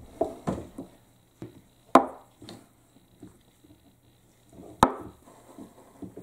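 Marbles rolling and dropping through a wooden HABA marble run, knocking on the wooden track pieces: two sharp clacks about three seconds apart among lighter knocks and rattles.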